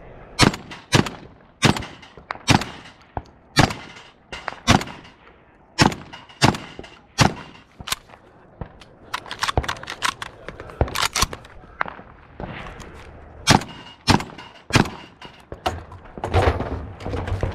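A shotgun fired in a long string of about twenty shots, mostly half a second to a second apart, with a few short pauses between groups. Near the end there is clattering handling noise.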